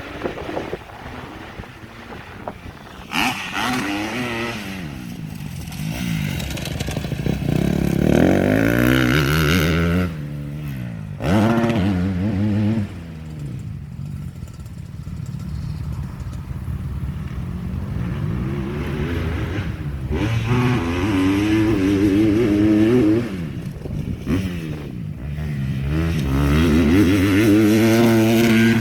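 Motocross bike engine revving hard. The pitch climbs and drops again and again as the rider works the throttle and shifts gears. It swells loudest a few times as the bike comes close.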